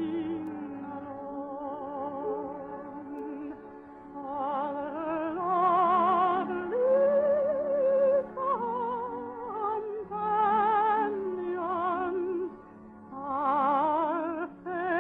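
Operatic singing with wide vibrato on long held notes, phrase by phrase with a short break near the end, over orchestral accompaniment. The sound is a narrow-band old radio recording.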